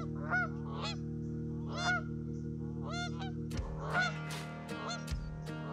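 Geese honking: a string of short repeated honks, coming faster in the second half, over steady sustained background music tones that shift about halfway through.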